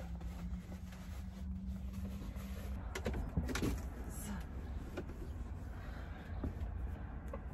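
Rolled clothes being packed into an overhead cabinet in a camper van: a few sharp knocks and clicks from the cabinet, about three seconds in, again at five seconds and near the end, over a steady low hum.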